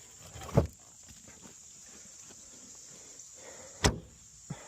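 Two loud thumps about three seconds apart, with a lighter knock just after the second: a car's door or lid being shut.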